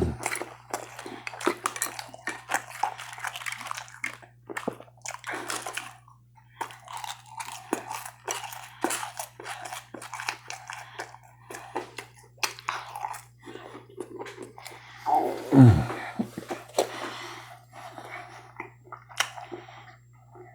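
Close-miked chewing and biting of fast food: crunchy, wet mouth sounds with many small clicks. A short vocal sound that falls in pitch comes about three-quarters of the way through.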